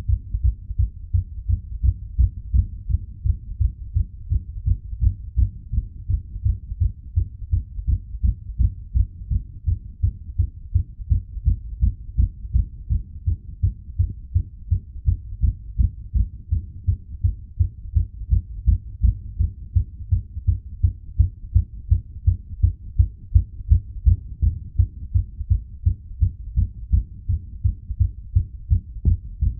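A human heartbeat, fast and regular: low thuds at about two beats a second.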